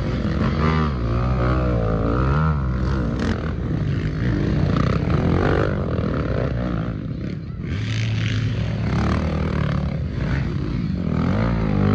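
Motorbike engines running and revving, their pitch rising and falling again and again over a steady low drone.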